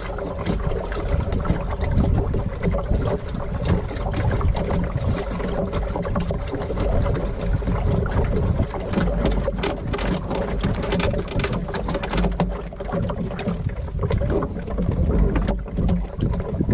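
Wind buffeting the microphone and water rushing and splashing along the hull of a small wooden sailing dinghy under way, with scattered knocks and clicks and a faint steady hum underneath.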